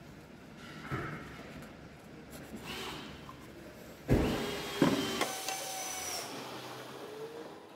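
A stack of larch wood staves knocked down twice onto a table saw's metal top, then pushed across it with a short scraping sound.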